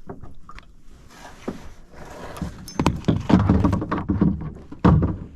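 Irregular knocks, thumps and rattles of gear against the kayak hull while a hooked bass is landed, busiest in the second half, with one heavy thump near the end.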